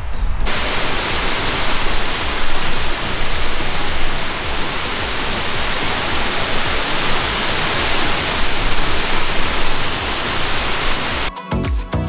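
Burgbach waterfall: the loud, steady rush of falling water. Near the end it cuts off and music with a beat takes over.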